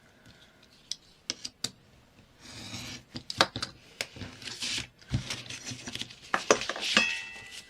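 Scissors cutting through a scrap of paper, a run of sharp snips mixed with paper rustling and handling.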